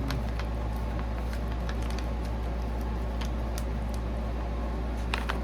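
Steady low hum with scattered faint clicks and smacks of a person chewing a dark-chocolate bark with seeds and fruit pieces. Two sharper clicks come close together near the end.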